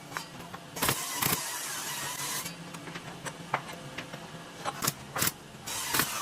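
Hand woodworking on timber: two pairs of sharp knocks, each pair about half a second apart and the pairs about four seconds apart, with a stretch of rasping tool noise after the first pair.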